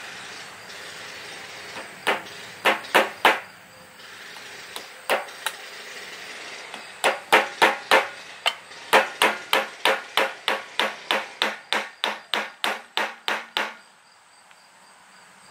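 Hammer tapping small nails through a thin copper post cap into the top of a wooden post. A few scattered taps come first, then a quick, even run of about two dozen light taps at roughly three a second, which stops a second or two before the end.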